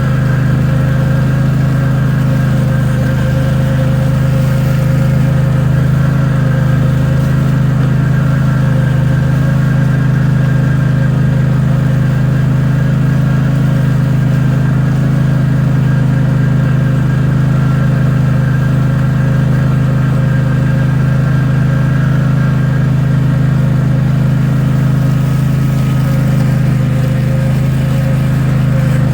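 Small vehicle engine running steadily at an even pitch while the vehicle is driven.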